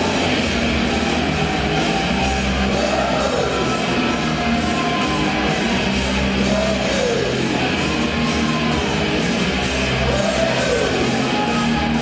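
Loud rock ring-walk music with guitar, running continuously, with a rising-and-falling sweep that recurs about every three and a half seconds.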